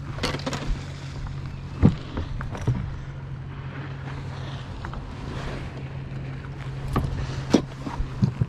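Several sharp knocks and thumps against a fiberglass bass boat's deck and hatches as a just-caught largemouth bass is handled, over a steady low hum.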